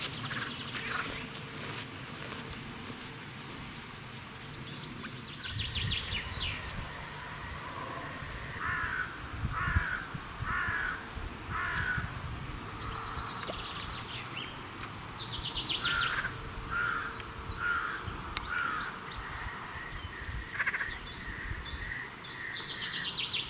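A bird calling in two runs of about five short calls, roughly three quarters of a second apart, with fainter chirping from other birds.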